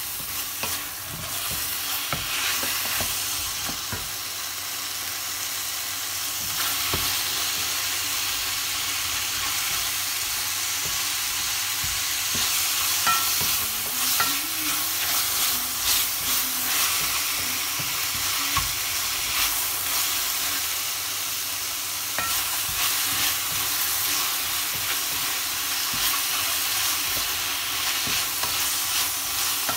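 Beef, celery and pineapple sizzling over high heat in a stainless steel frying pan, stir-fried with a wooden spatula that scrapes and clicks against the pan.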